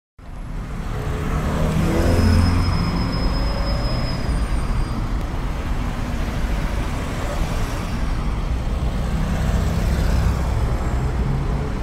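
Steady rumble of motor vehicles, with a low engine drone and a thin high whistle from about two to five seconds in.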